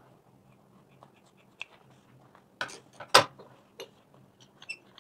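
Handling noise as a leather-and-fabric bag is moved and folded: faint rustles and scattered clicks, with two sharp knocks a little over halfway through, the second one louder.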